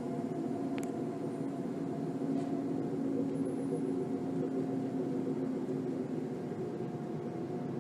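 A steady droning hum made of several held tones, of the kind reported as unexplained 'strange sounds' in the sky, with a click about a second in.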